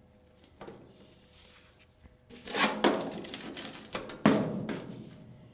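Thin sheet steel clattering and scraping as a patch panel is handled against the body, with one sharp metallic knock about four seconds in.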